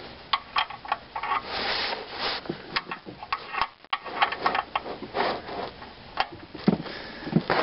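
Irregular clicks, taps and short rubbing scrapes of hands and tools working close to the camera.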